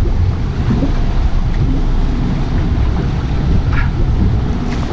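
Wind buffeting the microphone on an open fishing boat, over the wash of choppy sea water.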